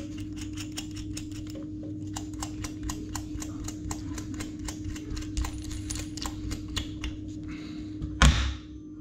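Quick run of small clicks as the bolts of a toilet cistern's close-coupling bolt set are screwed up tight, with a single thump near the end. A steady low hum runs underneath.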